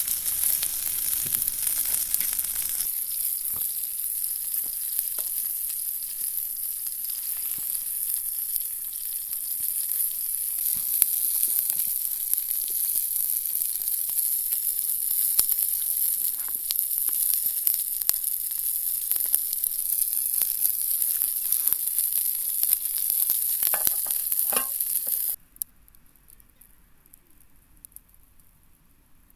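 Food frying in a pan: a steady high sizzle with scattered small pops. It cuts off abruptly near the end, leaving only faint sounds.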